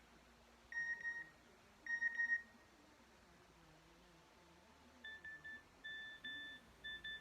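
Nokia 6233 mobile phone playing a ringtone through its small speaker: two warbling high beeps about a second apart, then after a pause a rhythmic string of short high beeps.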